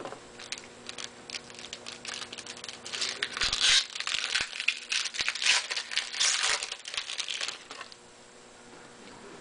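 Hockey card pack being torn open, its wrapper crinkling and rustling in irregular bursts for about seven seconds before it goes quieter near the end. A faint steady hum runs underneath.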